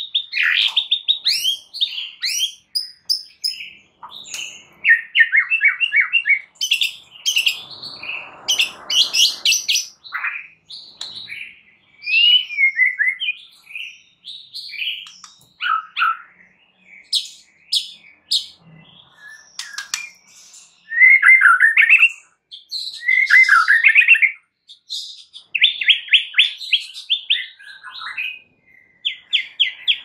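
White-rumped shama (murai batu) singing a varied song in bursts with short pauses: runs of rapid trilled notes, sweeping whistles and sharp chips.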